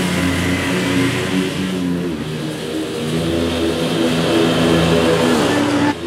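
Scag Cheetah zero-turn mower running under load while mowing grass, the engine's pitch stepping up and down in short jumps. The loudness drops suddenly near the end.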